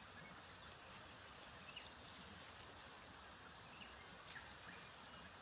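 Near silence: quiet bush ambience with a few faint crackles of dry, dead Tradescantia stems being handled, and a few faint high bird chirps.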